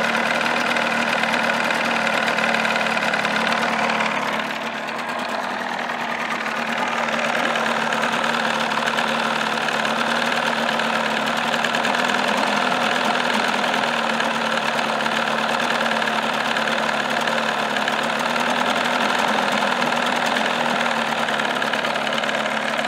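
A 1979 Evinrude 35 hp two-stroke outboard running steadily with its cowling off, loud at about 92 dB on a meter. Its level dips briefly about four seconds in and comes back up a couple of seconds later.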